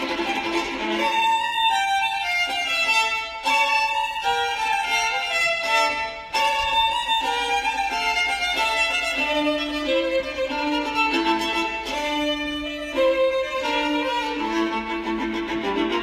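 Solo violin playing a melody of distinct bowed notes moving up and down in pitch.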